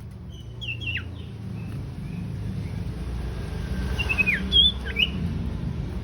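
Sirtu bird calling: short sharp whistled notes that slide steeply downward, in a burst about a second in and a louder burst around four to five seconds in, over a steady low hum.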